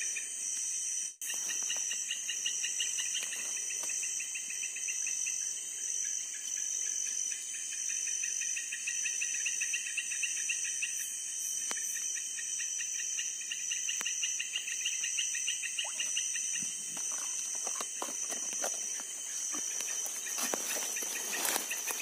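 Night chorus of crickets and other insects: a steady high shrill with a rapidly pulsing trill beneath it. Near the end, rustling of leaves and footsteps through vegetation.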